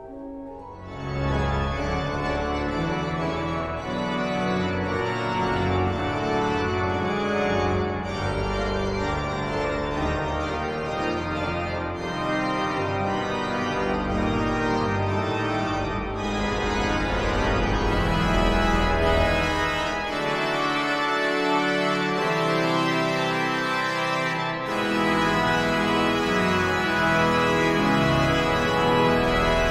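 Large church pipe organ playing a full-voiced piece: sustained chords over deep pedal bass notes, swelling in about a second in. The deep pedal bass drops out for a few seconds past the middle, then returns.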